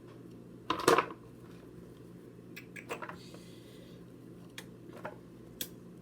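Kitchenware being handled: one loud clatter about a second in, then a few lighter clicks and knocks, over a steady low hum.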